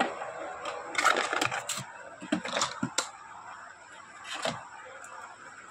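Sharp clicks and cracks of hard plastic as the toy robot dog and its small parts are handled, in a few separate bunches with a last click about four and a half seconds in.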